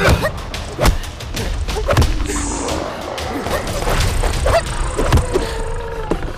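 Action-film soundtrack: music with several sharp hits and thuds spread through the mix.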